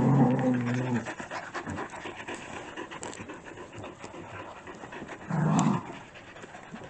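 Six-week-old puppies panting and snuffling close to the microphone as they play-wrestle, with a low growl at the start and a short one about five seconds in.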